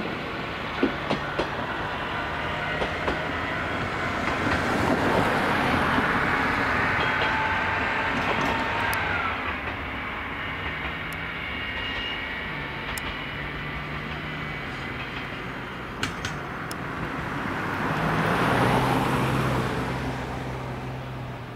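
Single-car diesel railcar running away on the track, its engine humming steadily with scattered clicks of the wheels over rail joints. It swells twice and fades near the end as it draws away.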